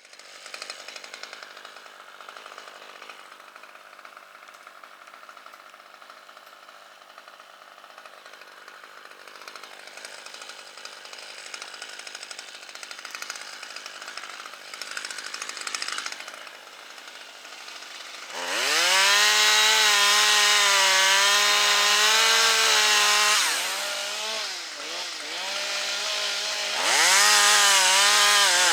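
Two-stroke chainsaw: quiet at first, then revved hard to full throttle about two-thirds of the way in and held there, easing off briefly and revving up again near the end.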